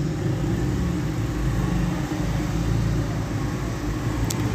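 Steady low rumble with a hum, like traffic or a motor running in the background, with one short sharp click near the end.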